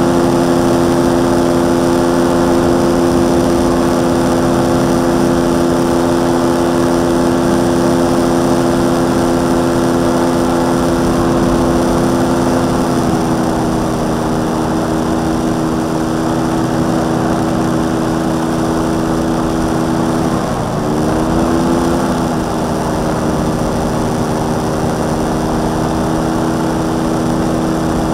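Motorcycle engine of a homebuilt para trike driving its propeller in flight, running steadily under power. The pitch eases down slightly about halfway through, then dips briefly and comes back up a few seconds later as the throttle is worked.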